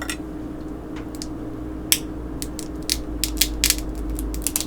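Crab shell being cracked and snapped apart by hand: a run of sharp cracks and clicks, scattered at first and coming thick and fast in the last second and a half.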